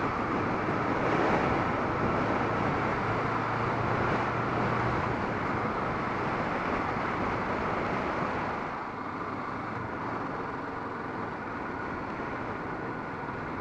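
Kawasaki Vulcan S motorcycle on the move: its 649 cc parallel-twin engine running under a steady rush of wind and road noise. The sound eases off a little about eight and a half seconds in.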